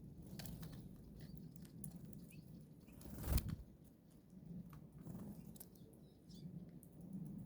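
Wings of small birds flapping at a seed feeder, with one louder flutter about three seconds in, among faint scattered clicks and taps.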